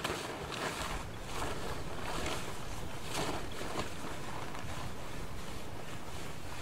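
Wind buffeting the microphone with a steady low rumble, with short rustles several times as a tarp is rubbed over and draped across a young horse.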